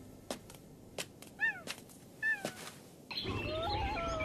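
Animated animal sound effects. A few soft taps and a short squeaky call come first, then about three seconds in a chorus of mixed animal cries starts over a low rumble as a crowd of animals gathers.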